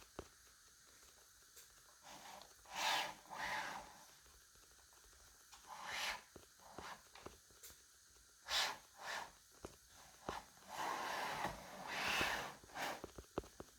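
Faint, breathy rushes of noise, about six of them at irregular intervals, with a few light clicks between, like close breathing and handling at the microphone.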